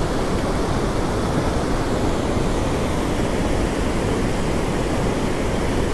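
Fast-flowing Himalayan mountain river, the Mandakini, making a loud, steady rush of water.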